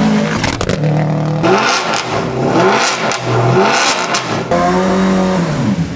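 Competition car engine revved in several blips, its pitch rising and falling each time, with exhaust pops and crackles on the overrun between them.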